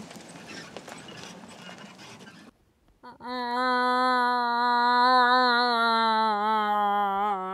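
A pickup truck's tyres on a gravel road, a steady noisy hiss, for the first two and a half seconds. Then, about three seconds in, a hunting guide gives a cow moose call by mouth through cupped hands: one long wavering moan of about four and a half seconds that sinks slightly in pitch toward the end.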